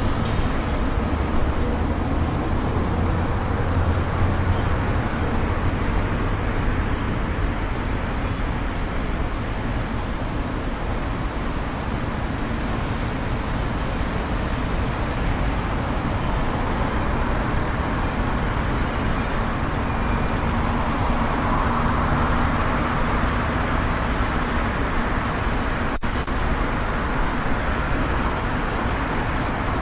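Steady road and traffic noise of a car driving through city streets, with a swell of passing-vehicle noise about two-thirds of the way through.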